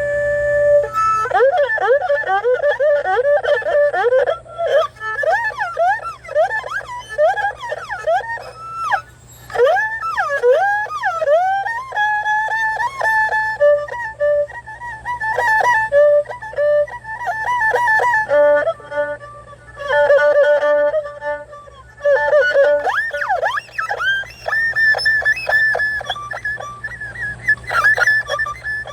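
Solo erhu playing bird-call imitations: fast swooping slides, trills and short chirping notes between longer held tones.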